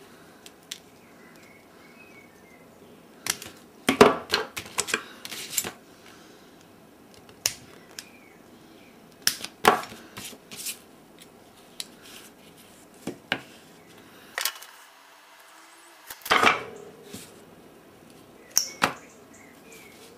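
Sharp clicks and taps from handling a small circuit board up close and working a ceramic capacitor's wire leads through it, coming in scattered clusters of a few clicks.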